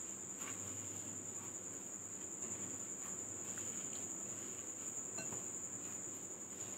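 Soft squishing of a hand kneading boiled rice, mashed boiled potato and soaked bread in a glass bowl, with a few faint clicks, under a steady high-pitched whine.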